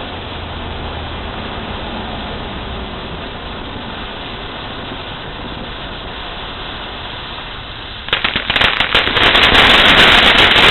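A steady hiss, then about eight seconds in a rapid, dense run of loud firecracker pops and crackles that goes on for about three seconds.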